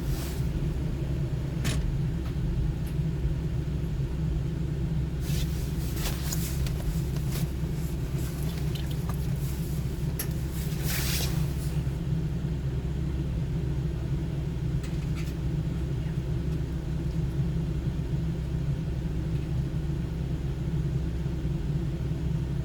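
Car engine running, a steady low hum heard inside the cabin, with a few brief rustles about five and ten seconds in.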